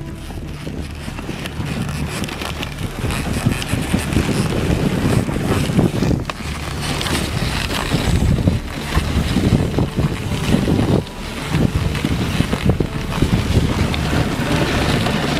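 Dog sled running over a snowy trail behind a husky team: the runners scrape and crunch on the snow while wind buffets the microphone in a low rumble.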